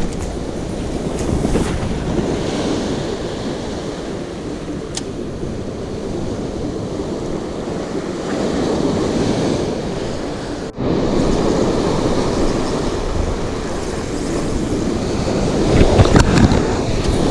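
Strong wind buffeting the microphone over the sound of waves breaking on the shore, a steady rushing roar with gusts. It cuts out for an instant about two-thirds of the way through.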